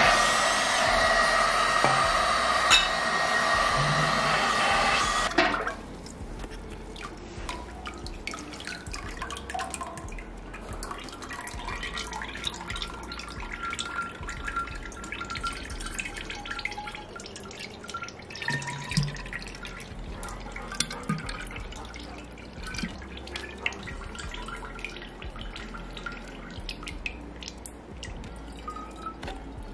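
A hot air gun blowing steadily into glass bottles to sterilise them, cutting off suddenly about five seconds in. Then light clinks, taps and drips go on at a lower level.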